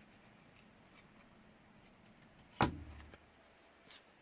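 One sharp knock about two and a half seconds in, with a brief low ring after it, then a softer brushing sound near the end, over faint room tone.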